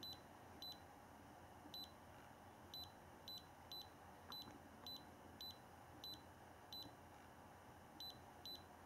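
Short electronic key beeps from an iCarsoft i907 handheld scan tool as its button is pressed again and again to scroll through a menu: about a dozen brief high beeps at uneven intervals of roughly half a second to a second.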